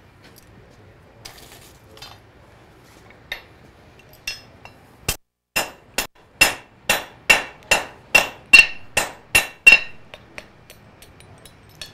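Blacksmith's hand hammer striking hot iron on an anvil while forging a nail: a few light scattered taps, then about five seconds in a steady run of about a dozen hard ringing blows, roughly two and a half a second, then light taps near the end.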